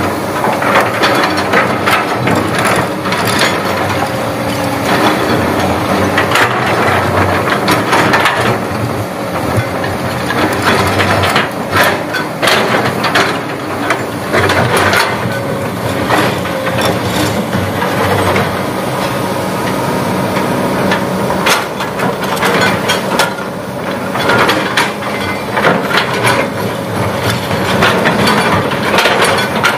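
Hydraulic excavator's diesel engine running steadily under load while the steel bucket scrapes and digs into rock and gravel, with many irregular sharp cracks and clatters of stone.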